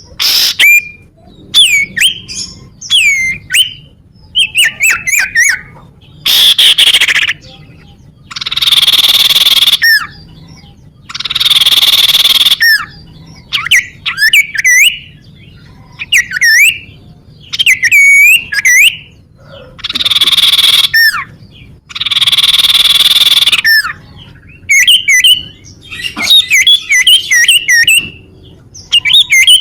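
Common iora (cipoh/sirtu) song: loud, clear whistled notes that swoop up and down, given in quick runs, alternating with harsh buzzy rattles about a second long, repeated phrase after phrase.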